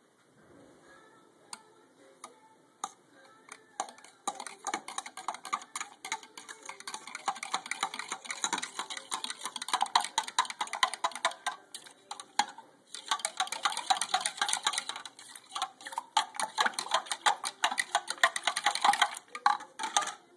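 A drink being stirred briskly in a clear plastic cup of ice water, with fast clicking and rattling against the cup. It picks up about four seconds in and pauses briefly twice.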